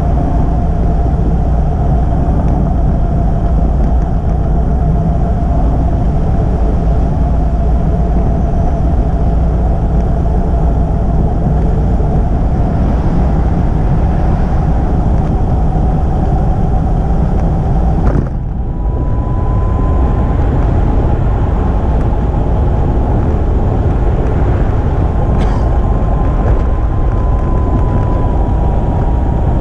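Steady wind rush and road noise on the microphone of a camera riding along a road. A thin steady whine runs through it and steps up in pitch about two-thirds of the way in, just after a brief dip in the noise.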